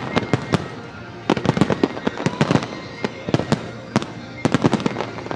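Fireworks display: aerial shells bursting in rapid clusters of sharp bangs and crackles, with a short lull about a second in.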